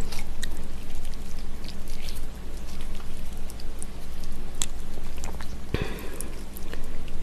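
Chopsticks stirring and lifting noodles in a bowl of cold, soupy raw-fish broth: wet sloshing and splashing with scattered small clicks, and one louder splash about six seconds in.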